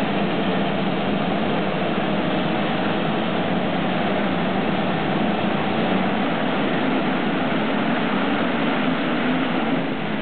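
A full gate of motocross bikes revving at the start line, many engines running together in a dense, steady drone; near the end the field launches off the line and pulls away.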